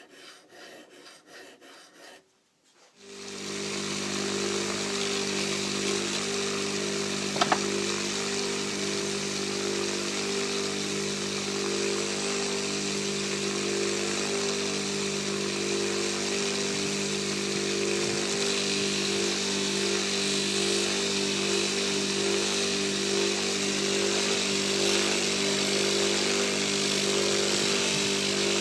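Electric buffing wheel motor starting about three seconds in and then running steadily, a hum with a hiss over it, as the ice chisel blade is fine-tuned on the wheel. Before it starts there are faint rubbing strokes, and a single sharp tick comes about seven seconds in.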